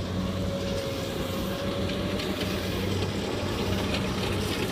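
Kubota rice combine harvester's diesel engine running steadily under load as it cuts and threshes, an even hum with a faint whine over the first couple of seconds.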